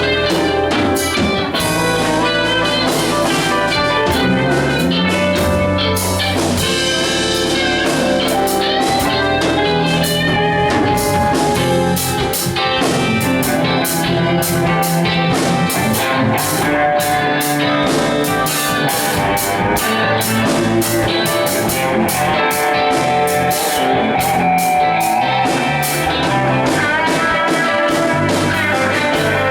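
A live band playing an instrumental blues-rock jam: electric guitar leads over bass, keyboard and a drum kit keeping a steady beat.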